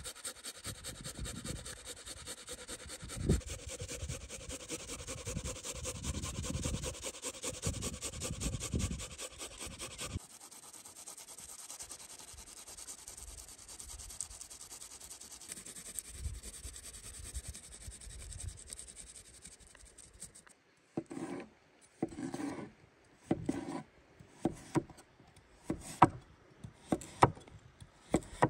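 A fast, continuous rasping as tomatoes are rubbed across a stainless steel box grater into a glass bowl. About ten seconds in it turns quieter, as an onion is grated instead. From about twenty-one seconds, a kitchen knife slices peeled potatoes on a wooden board in separate sharp chops.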